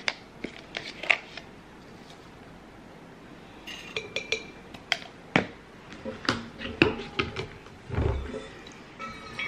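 Plastic scoop and powder tub being handled, the scoop clinking against the stainless-steel rim of a shaker bottle as pre-workout powder is tipped in, in a series of scattered clicks and taps. A dull thump comes near the end.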